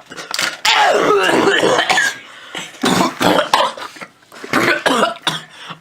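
A man coughing hard in a fit, in three loud bouts: a long one about half a second in, then two shorter ones.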